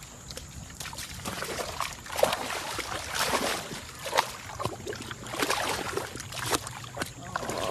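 A dog splashing and sloshing through a muddy puddle, with irregular wet splashes.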